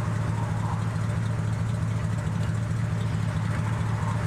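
Engine idling steadily: a constant low hum that does not change.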